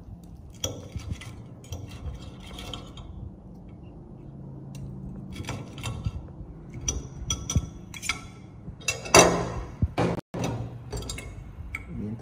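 Kitchenware being handled: scattered clinks, clicks and knocks over a low steady hum, with one louder clatter about nine seconds in.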